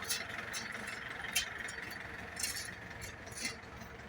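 Steady outdoor background hum with about six short, light clicks and clinks scattered through it.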